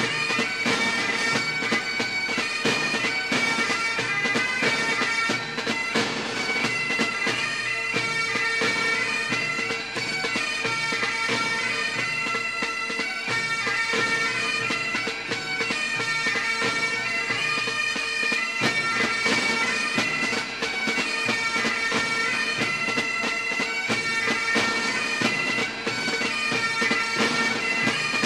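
Bagpipe music: a tune played over a steady, unbroken drone.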